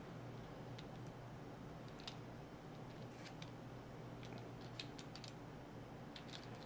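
Faint, irregular light clicks of a small Torx screwdriver and screw working against a folding knife's handle as a back spacer screw is fitted, some in quick little clusters, over a low steady hum.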